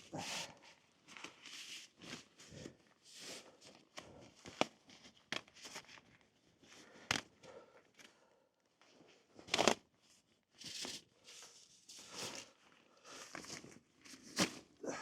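Vinyl RV tire covers being tugged and handled, irregular rustling and crinkling with a few sharp snaps; the covers are stuck fast and won't come off.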